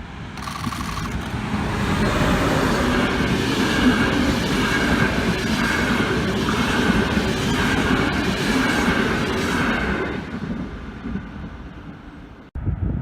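A train passing on the line, swelling over the first two seconds, running loud with wheels rattling over the rail joints, then fading away over the last few seconds before the sound cuts off abruptly.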